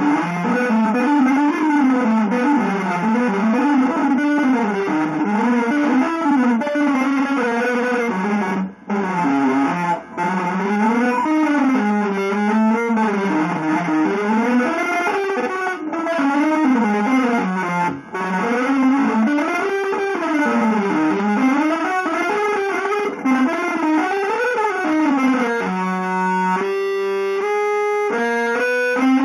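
Electric guitar playing a free, melody-less improvisation: fast unbroken runs of notes weaving up and down, broken by a few short gaps. About three seconds before the end it changes to a string of separate held notes stepping in pitch.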